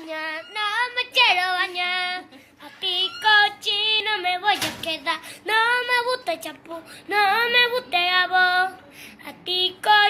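Background music: a children's song sung by a high child or female voice, in short phrases with vibrato.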